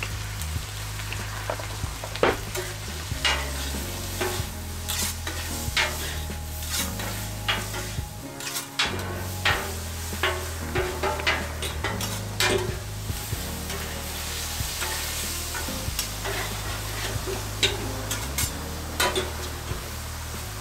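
Vegetables and scallops sizzling on a hot steel flat-top griddle while a metal spatula and fork chop, toss and scrape against the plate, with sharp irregular clinks every second or so over the steady frying hiss.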